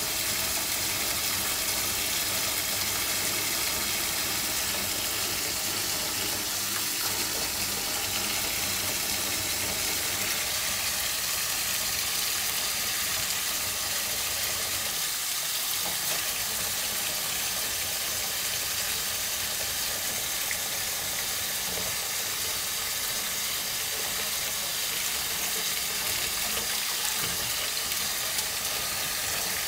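Kitchen tap running a steady stream of water onto a bathing African grey parrot and into a stainless steel sink.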